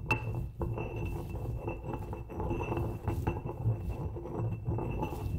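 Light repeated clinks over a steady low hum and a faint high steady tone, starting abruptly.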